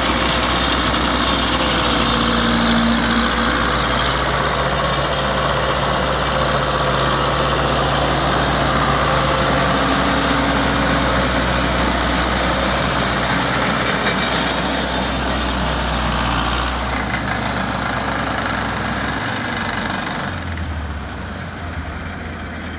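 Zetor 7245 tractor's four-cylinder diesel running steadily under load with its PTO-driven flail mulcher spinning. Near the end the sound drops and thins to a quieter, lower engine note.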